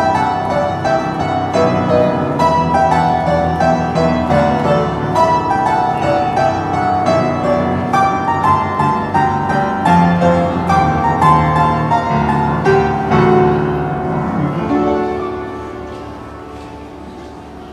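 Upright street piano played fast and dense through a closing passage, ending on a final chord about 13 seconds in that dies away within a couple of seconds. The piano is neglected and its sustain pedal does not work, so it sounds dull and muffled.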